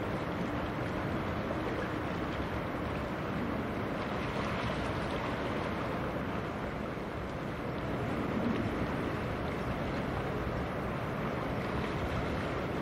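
Steady rushing noise of wind and water with no distinct engine tone.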